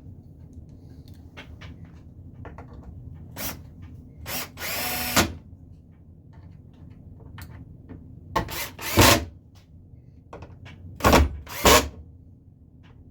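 Cordless drill driving screws in short bursts: a single spurt, then one longer run of under a second about five seconds in, then quick paired spurts near the end.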